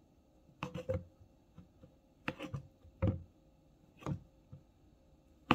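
Half a banana being cut into chunks with a knife over a plastic blender cup: about six short taps and knocks as the blade works and pieces drop into the cup, the sharpest one near the end.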